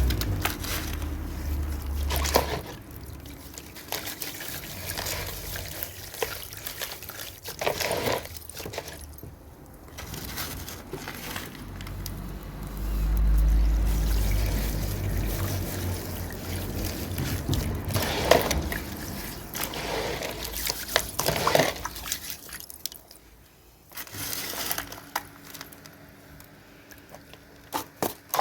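Dry powdery cement being crumbled into water: irregular splashes, trickles and crackles as the lumps break up and fall in.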